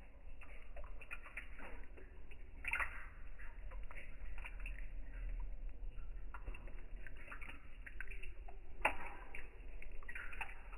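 Water splashing and dripping in irregular small splashes, over a steady low rumble.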